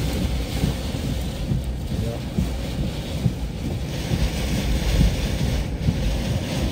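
Hurricane wind and driving rain battering a vehicle, heard from inside as a constant low rumble with uneven gusts. The hiss of rain and spray grows louder about four seconds in.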